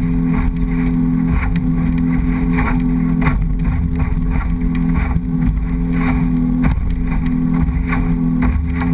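Motorboat running at speed: a steady engine drone with wind and water rushing past, and irregular short knocks as the hull meets the chop.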